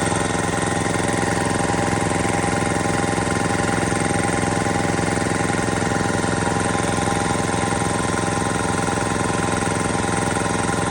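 McGraw 29-gallon oil-lube belt-drive air compressor running steadily, its induction motor driving the V-style cast-iron pump to build tank pressure. Music from a radio plays underneath.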